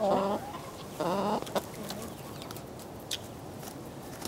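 Domestic hens clucking, with two drawn-out calls near the start and about a second in, then a few faint clicks.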